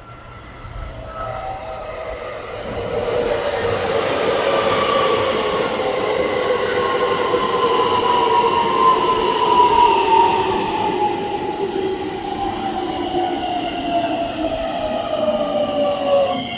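Electric train on elevated track, its traction-motor whine falling slowly and steadily in pitch as the train slows, over the rumble of its wheels on the rails. The sound builds over the first few seconds as the train draws near.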